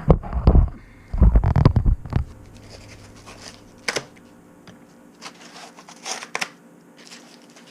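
Packaging being handled and unwrapped from a fish-finder transducer: heavy rubbing and knocking close to the microphone for the first two seconds, then scattered crinkles, scrapes and clicks.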